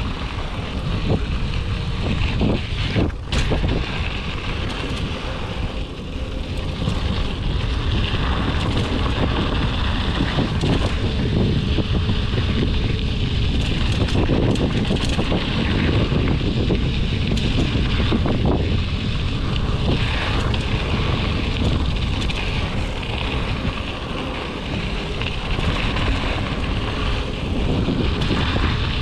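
Mountain bike ridden over rocky dirt singletrack, heard through an action camera's microphone: steady wind noise on the mic, mixed with tyre crunch on gravel and a few sharp clicks and rattles from the bike, the clearest about three seconds in.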